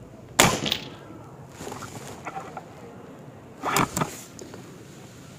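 A Reximex Throne Gen2 PCP air rifle fires one shot about half a second in, a sharp crack followed by a fainter knock. A few small clicks follow, then a second burst of clicking and clatter a little before the end as the rifle's action and single-shot tray are handled to reload.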